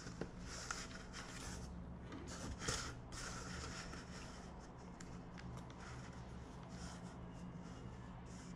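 Faint handling noise: fingers rubbing and tapping on a small plastic DDPAI dashcam on a cardboard sheet, with a few small clicks, the loudest about two and a half seconds in, over a low steady hum.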